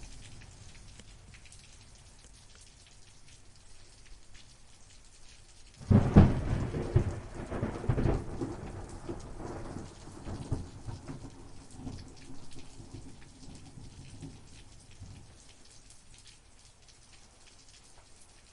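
Thunderstorm: steady rain with a sudden loud thunderclap about six seconds in, rumbling on and fading away over several seconds.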